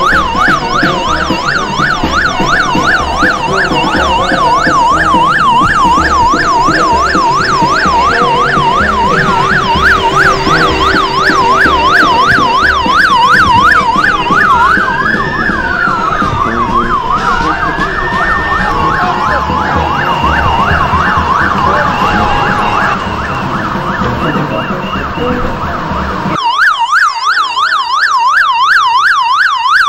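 Convoy escort siren sounding a fast yelp. About halfway through there are a few slow rising-and-falling wails, all over a rumble of background noise that cuts off near the end, leaving the siren on its own.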